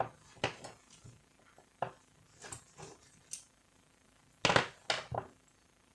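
Plastic and metal parts of a Canon iR2016 copier fuser unit clicking and knocking as they are handled and fitted together by hand: scattered single clicks, then a louder quick cluster of knocks about four and a half seconds in.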